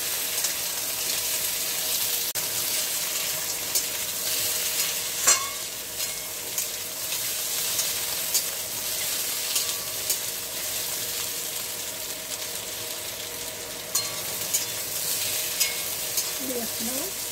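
Vegetable pieces sizzling in hot oil in a metal kadai as they are stir-fried, a steady hiss, with the flat metal spatula scraping and knocking against the pan in scattered clicks, the sharpest about five seconds in.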